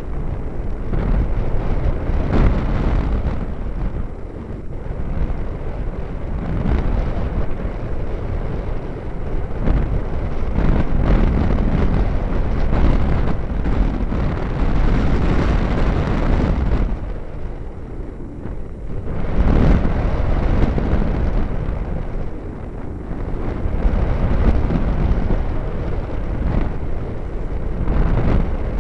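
Wind rushing and buffeting over the microphone of an EasyStar model plane's onboard FPV camera in flight: a loud, low rumbling noise that swells and eases, dipping briefly about two-thirds of the way through.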